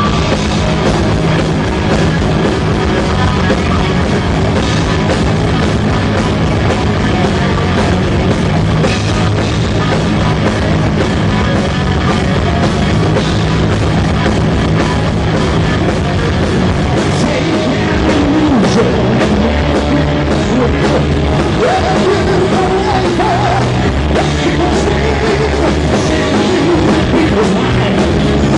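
Live rock band playing loudly: electric guitars over a drum kit, with a wavering lead line riding on top in the second half.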